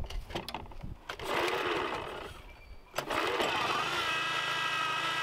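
Recoil-started small engine of a wheeled trimmer being pulled over, then catching about three seconds in and running steadily. It is restarting after being stalled with Seafoam and left to hot soak.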